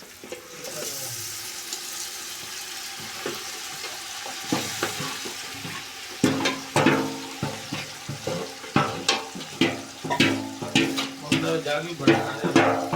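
Chicken frying with a steady sizzle in a karahi. From about six seconds in, a metal ladle stirs the pan, knocking and scraping against it about twice a second.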